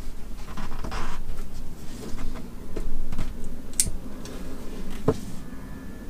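Hands working soldered pins into a QS8 connector's plastic housing with a small screwdriver: rubbing and scraping of plastic, with a few sharp clicks.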